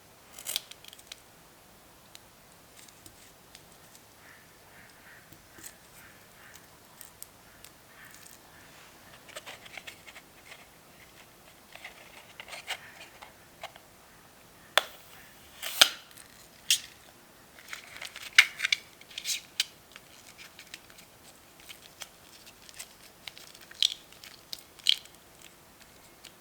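Scissors snipping through small rubber balloons: a scattered series of sharp snips and clicks, loudest in a cluster past the middle and again near the end.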